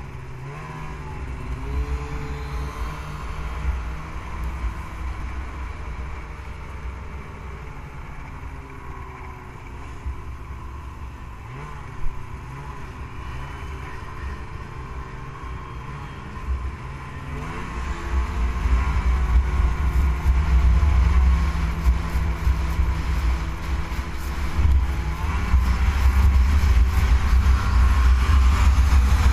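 Snowmobile engine running, its pitch shifting up and down. About 17 seconds in it speeds up and gets much louder, with a heavy low rumble from then on.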